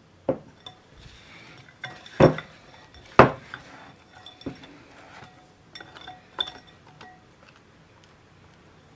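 Wire whisk and silicone spatula knocking and clinking against a glass mixing bowl as whipped egg yolk is scraped off the whisk and the bowl's sides. Sharp, ringing clinks, the loudest about two and three seconds in, with fainter taps between.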